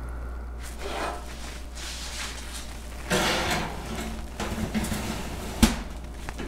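A cast iron pot handled into an oven: metal-on-metal scraping and clatter from the pot and the oven rack, with one sharp knock a little before the end.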